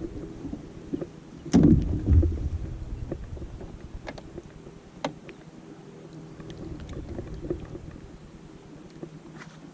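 Thumps and knocks on a small fishing boat, loudest in a cluster about a second and a half in, over a faint steady hum; a few light clicks follow.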